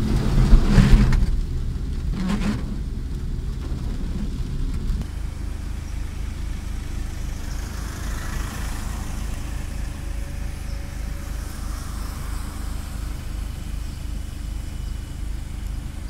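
Car driving, a steady low engine and road rumble heard from inside the cabin. Twice in the first few seconds, a short rush of water splashing up from the tyres on the flooded road.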